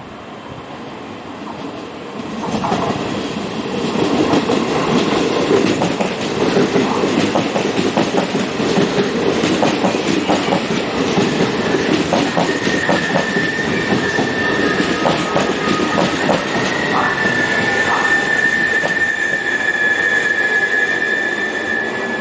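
Train rolling through the station, loud from a few seconds in, its wheels clacking over rail joints and points. A little past halfway a high, steady wheel squeal starts and holds almost to the end.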